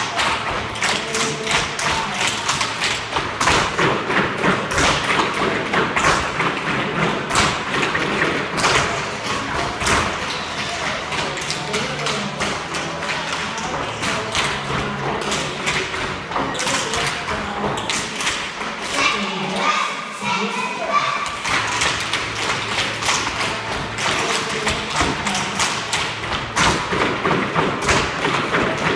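Many tap shoes striking a wooden floor at once: a beginners' tap class dancing in loose unison, a dense, uneven clatter of taps and stamps, with music and vocals playing under it.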